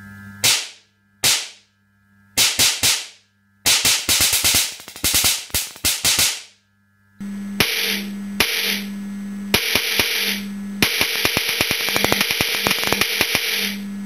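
Sharp, loud bangs of high-voltage spark discharges from a stun gun and capacitor pulsing a microwave-oven magnetron: two single cracks, then quick rapid-fire series of bangs. From about seven seconds a steady low hum with fast crackling snaps takes over.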